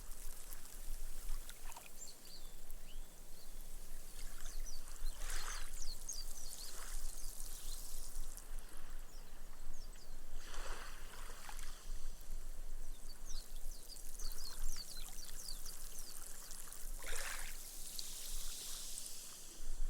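Small, gentle sea waves washing up a sand beach, three swashes about six seconds apart. Between them comes the fine fizz and crackle of foam bubbles bursting as the water soaks into the sand.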